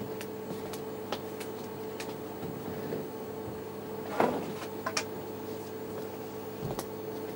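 Light knocks and clicks of objects being handled, scattered and sparse, the loudest about four seconds in, over a steady electrical hum.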